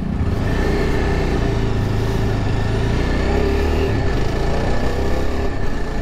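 Yezdi Adventure motorcycle's single-cylinder engine running steadily while riding, mixed with steady road and wind noise.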